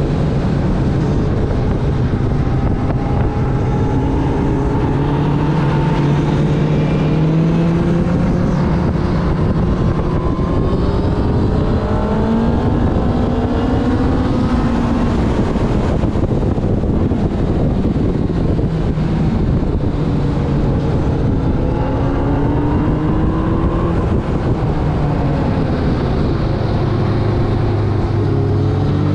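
Onboard sound of a sport motorcycle at track speed: the engine note climbs through the revs several times, dropping back at each gear change and rising again, over a steady rush of wind and road noise.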